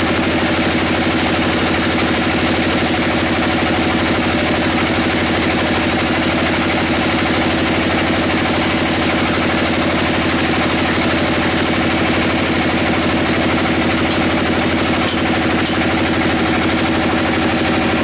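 Sawmill saw machinery running steadily with a loud, even drone and hum, as a squared timber is fed through it.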